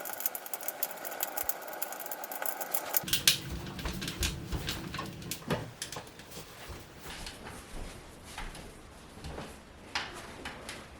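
Firewood burning in a wood stove, crackling with many small irregular pops and snaps over a steady hiss; the background hiss changes abruptly about three seconds in.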